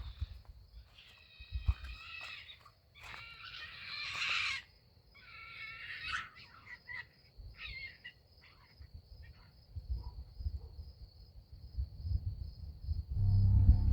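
Wild animals screeching and yowling at night, three loud harsh calls in the first six seconds, then shorter, fainter ones: the sound of an animal fight, which the recorder guesses was mountain lions.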